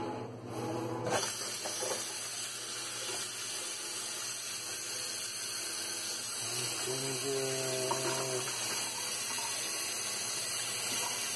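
Kitchen sink faucet turned on about a second in, then water running steadily into the sink basin.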